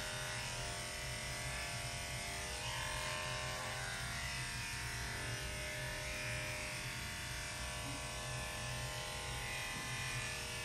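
Electric dog-grooming clippers running with a steady buzzing hum while clipping a dog's coat.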